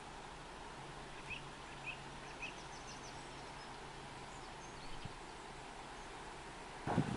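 Quiet rural outdoor ambience, a steady faint hiss, with a small bird giving three short calls about half a second apart from about a second in. A louder low rumbling starts just before the end.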